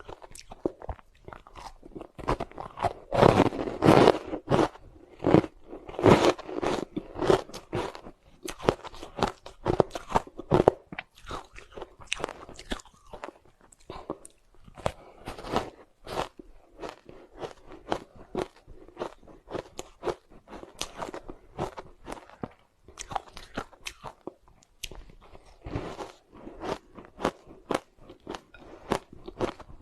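Soft ice with matcha powder being bitten and chewed: a continuous run of sharp, brittle crunches, loudest and densest a few seconds in and again around ten seconds.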